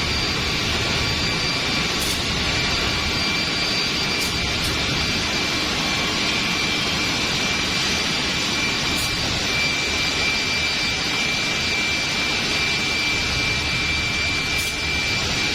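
Holztek six-sided CNC drilling machine with twin spindles running: a steady high-pitched whine over a steady rushing noise, with a few faint clicks.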